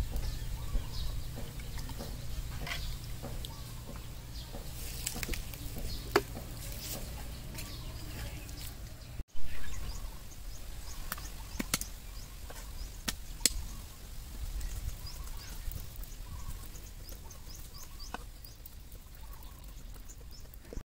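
Outdoor countryside ambience: a steady low rumble with faint bird calls and scattered sharp clicks and taps. The sound cuts out briefly about nine seconds in.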